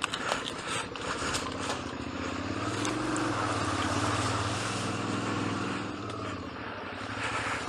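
Suzuki V-Strom 650's V-twin engine running at low revs as the bike pulls through mud and water, the revs rising a little partway through. Sharp knocks and splatters in the first couple of seconds.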